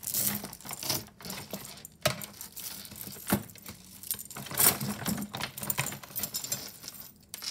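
Small metal jewelry pieces clinking and jangling together as hands rummage through a bag of mixed jewelry, an irregular string of light clinks.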